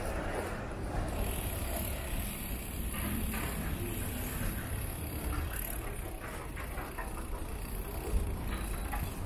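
Wind and road noise from riding a bicycle: a steady low rumble.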